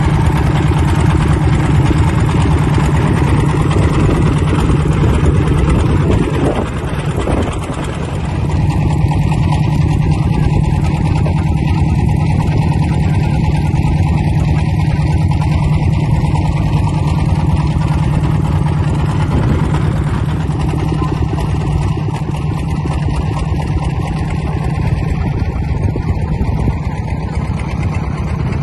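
Engine of a motorized wooden pirogue running steadily under way, heard from on board, with a brief dip in loudness about six seconds in.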